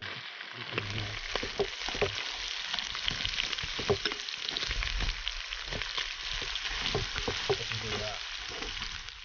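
Pork and vegetables stir-frying in a steel wok: a steady sizzle, with the chopsticks clicking and scraping against the pan as the food is turned.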